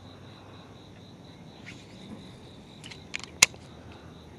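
Steady high-pitched drone of insects in the background, with a few sharp clicks about three seconds in, the last one the loudest.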